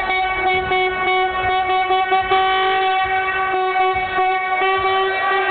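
Curved metal horn blown in one long, steady held note.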